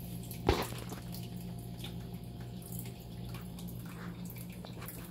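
Water trickling and dripping over a steady low hum, with one sharp knock about half a second in.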